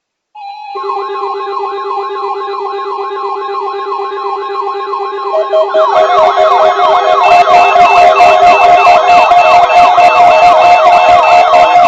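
Electronic warning sirens sounding together: a fast yelping sweep, about three rises a second, over a steady tone. It starts about half a second in, and around six seconds in more sirens join, louder and denser.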